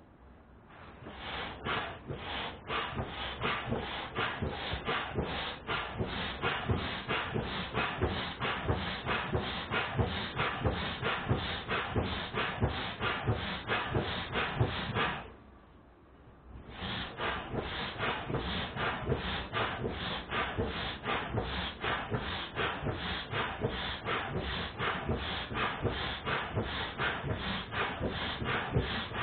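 An air pump being worked in quick, even strokes, about two or three a second, each stroke a short rush of air, most likely inflating the PVC boat. The pumping stops for a moment about halfway through, then starts again.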